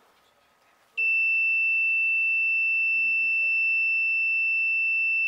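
An electronic alarm buzzer sounding one loud, steady high-pitched tone that starts about a second in: the medication dispenser's alarm signalling that it is time to take the medicine.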